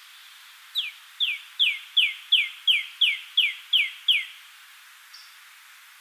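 Red-bellied woodpecker calling a series of about ten short notes, about three a second, each sliding sharply down in pitch.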